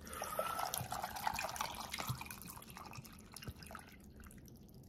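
A drink being poured, liquid splashing and trickling for about two seconds, then a few small clicks and drips.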